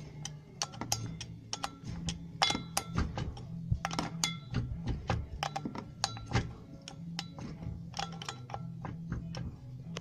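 Ratchet and socket clicking in short, irregular runs with a faint metallic ring, tightening the 12 mm nuts on the tail shaft flange bolts.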